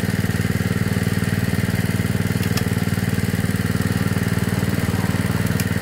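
Small petrol engine of a 3-inch 'alkon' water pump running steadily with a fast, even beat, driving the water jet for manual well boring.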